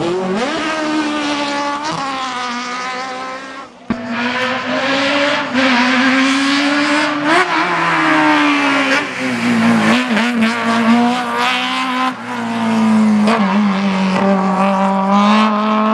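Fiat 127 race car engine revving hard under load, its pitch repeatedly climbing and dropping through gear changes, with a brief break about four seconds in.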